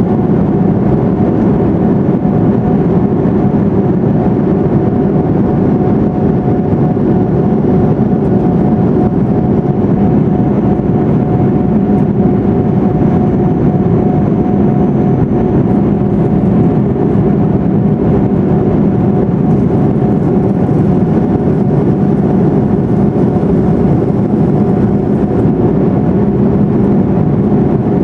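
Steady drone of an Airbus A340-600's Rolls-Royce Trent 500 engines and rushing air, heard inside the cabin from a seat over the wing during the climb after takeoff. A constant hum runs through it, with no change in level.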